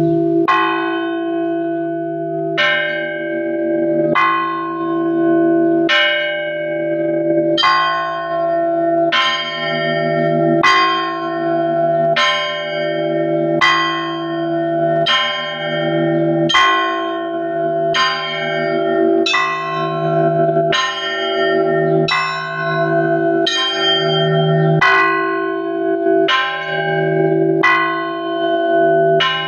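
Russian Orthodox church bells being rung: a cluster of bells struck together about every one and a half seconds, each stroke ringing out and overlapping the next, over the steady hum of the larger bells.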